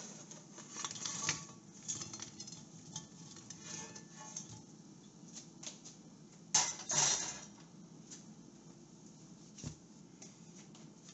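Hash brown rounds sliding and tumbling off a stainless steel pan onto a ceramic plate, with light scrapes and clinks. About six and a half seconds in, the metal pan is set down on an electric coil burner with a clatter, the loudest sound.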